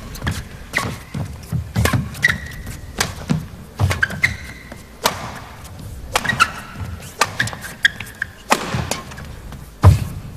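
Badminton rally: sharp racket strikes on the shuttlecock about once a second, with short squeaks of players' shoes on the court and thuds of footwork. The loudest strike comes near the end.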